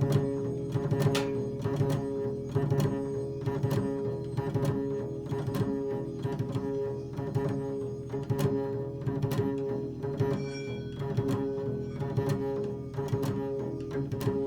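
Improvised instrumental music: plucked string notes struck about once or twice a second over a steady held drone tone.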